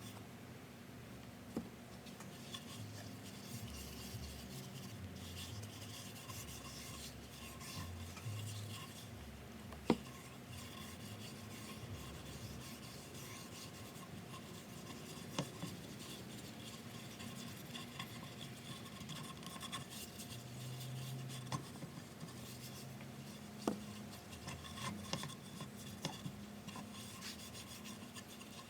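Continuous scratchy rubbing against the wood of a walnut cutting board, with a few light sharp knocks, the loudest about ten seconds in.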